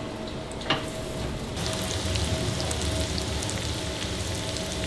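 Seasoned potato chunks frying in oil and butter in a frying pan, sizzling steadily. The sizzle comes in louder about a second and a half in, after a quieter stretch with a single clack.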